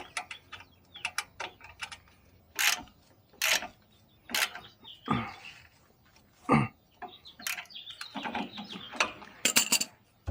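Metal hand tools at work on the suspension: irregular sharp clicks and metallic knocks, some in quick runs, with a couple of short scrapes.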